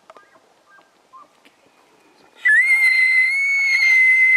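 Bull elk bugling: a loud, high whistling note comes in about halfway through and is held steady.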